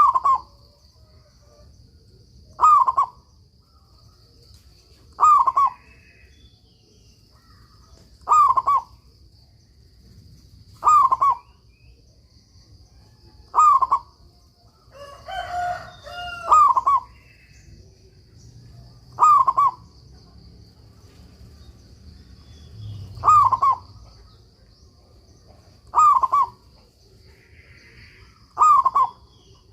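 Local perkutut (zebra dove) cooing its short phrase over and over, about once every two and a half seconds. A steady faint high-pitched hum runs underneath, and a second, rougher call overlaps about halfway through.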